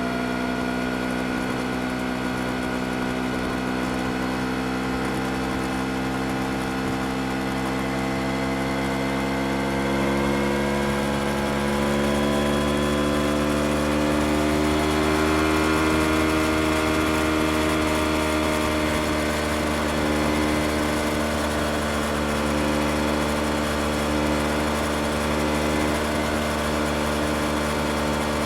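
Yamaha R25 parallel-twin engine running steadily. Its note rises gently about a third of the way in, then eases slowly back down.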